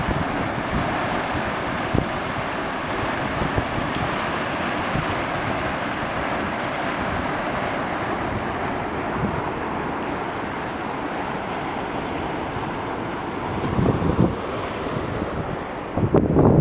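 Waterfall rushing with a steady roar. Wind buffets the microphone in low gusts near the end.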